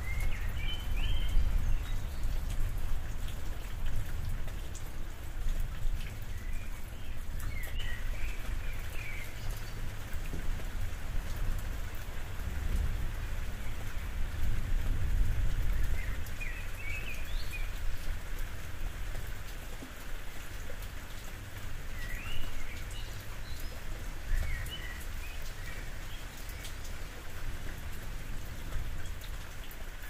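Steady rain falling on a roof, with scattered individual drops and a low rumble underneath. A bird gives short bursts of chirps every few seconds, about six times in all.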